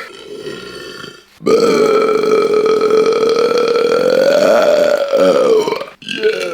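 A man's deliberate, loud, long burp held for about four seconds. It is steady in pitch, rises slightly late on and falls away at the end, after a quieter lead-in at the start.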